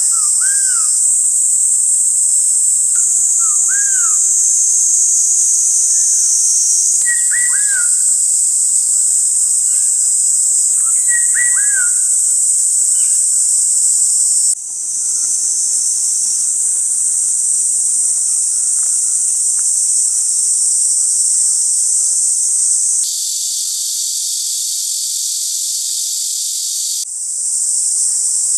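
Summer woodland ambience: a loud steady high-pitched insect chorus with fluting, whistled black-naped oriole calls every few seconds, clearest in the first half. A large-billed crow caws right at the start.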